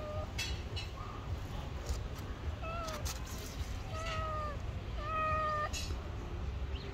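A kitten meowing three times in short calls, the last one longer and held steady, typical of a hungry stray begging for food. A few brief clicks fall between the calls.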